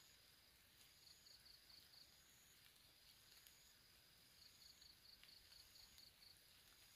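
Near silence with faint insect calls: short runs of quick, high-pitched chirps repeating every second or so, over a thin, steady, high buzz that comes and goes.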